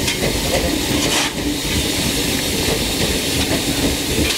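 Steady hiss of steam from the Fairy Queen, an 1855 steam locomotive, standing with steam up, over a low rumble.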